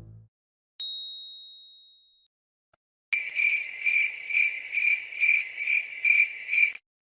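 A single bright ding rings out and fades over about a second. After a pause, cricket chirping follows in even pulses, about two and a half a second, for nearly four seconds, then stops abruptly. This is the stock comedy crickets sound effect.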